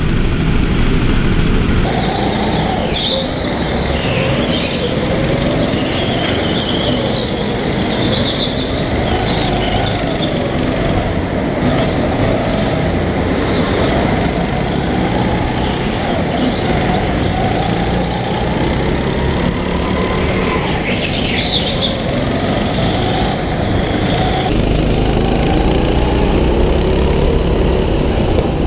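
Go-kart engine heard from the onboard camera, its revs rising and falling through the corners, with brief high tyre squeals now and then. The sound changes abruptly about two seconds in and again near the end.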